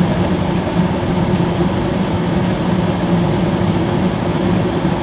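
A Coleman 95% high-efficiency gas furnace running in heating mode: its inducer motor and blower give a steady, low hum over an even rush of air.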